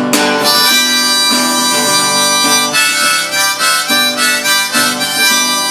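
Harmonica playing an instrumental break, sustained chords that change every half second or so, over strummed acoustic guitar.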